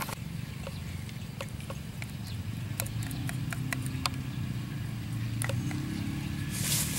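A metal spoon clicking and scraping against a ceramic plate as it stirs a thick batter and coats banana pieces: a scattered series of sharp little clicks over a low steady hum, with a brief rush of noise near the end.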